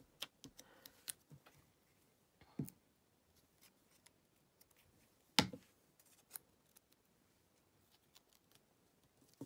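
Light scattered clicks and taps of paper pieces and fingers on a card and tabletop as small paper crosses are pressed down with glue, with one sharper click about five and a half seconds in.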